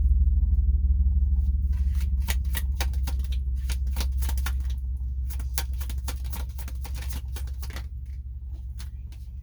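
Tarot cards being shuffled, a fast run of small card clicks and flicks. Under them runs a steady low hum that slowly fades away.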